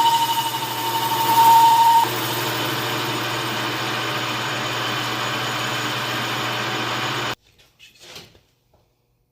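Hand-held power grinder cleaning up welds on a metal part: a steady high whine for about two seconds, then a rougher steady noise, cutting off abruptly a little past seven seconds, followed by a few faint clicks.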